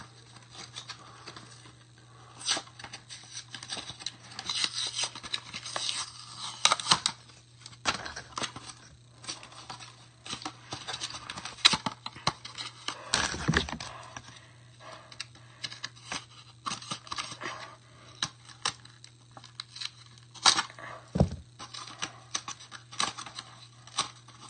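Packaging being handled and opened: irregular rustling, scratching and tearing, with many sharp clicks and snaps.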